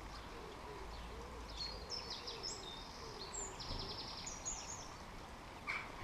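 Garden birdsong: a small songbird sings a quick run of high notes for a few seconds, over a steady series of low cooing notes from a pigeon. A short knock comes near the end.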